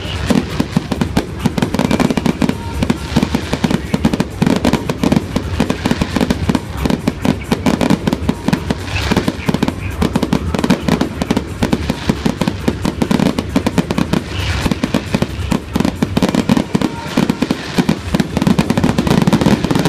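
Aerial fireworks going off in a continuous rapid barrage of bangs and crackles, many shells bursting at once.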